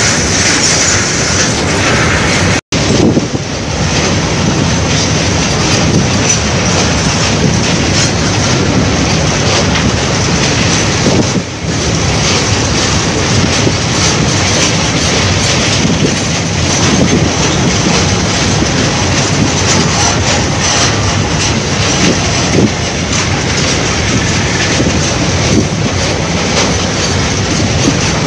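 Goods train of open steel wagons running close by on a steel truss bridge: a loud, steady rattle and rumble of wheels on rails. The sound drops out for an instant about three seconds in.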